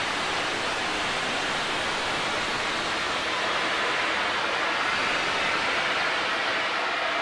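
Steady hiss of steam from a standing A4 Pacific steam locomotive.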